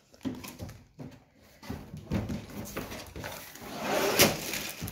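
Plastic bags of LEGO pieces being handled, with the crinkle of the bags and the small knocks of the bricks inside as the bags are set down, and a sharper knock about four seconds in.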